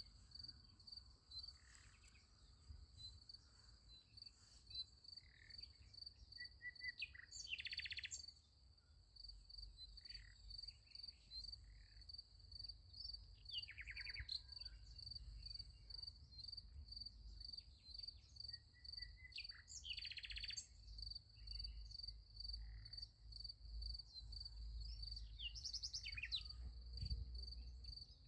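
Crickets chirping in a steady, even high pulse, about two chirps a second, with songbirds calling and trilling every several seconds. A faint low rumble lies beneath.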